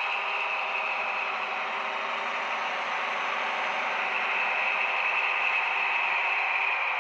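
Model of a DB V 100 diesel locomotive running along the layout's track with its train of coaches, a steady diesel-engine-like running sound with motor and wheel noise, growing slightly louder as it comes closer.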